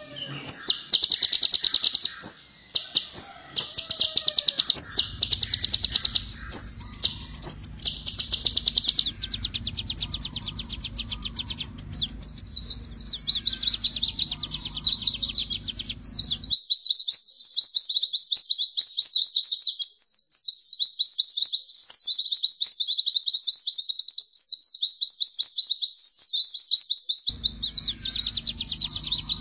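Kolibri ninja (purple-throated sunbird) singing a continuous stream of fast, high, sharp chirps and trills. A low hum runs under the song through much of the first half and again near the end.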